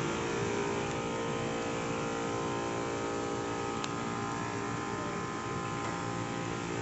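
Full-body disinfection tunnel's spray pump running, misting sanitizer through its nozzles: a steady motor hum with a hiss of spray.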